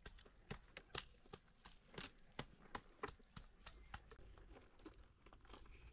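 Faint, uneven clicks and light crackles, about four or five a second, over a low steady hum.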